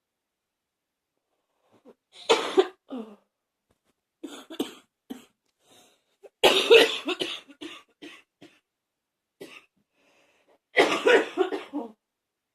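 A person coughing in a run of harsh fits: a persistent cough that is still hanging on. It starts about two seconds in, and the longest and loudest fit comes about halfway through.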